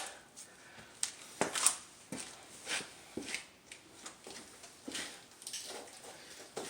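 Scattered light clicks and knocks, irregular and about one or two a second, from hand tools and brake parts being handled at a car's front brake caliper.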